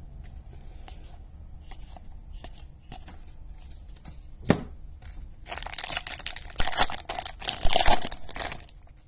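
A foil trading-card pack wrapper being torn open and crinkled for about three seconds in the second half. Before it there are light handling clicks and a single sharp knock.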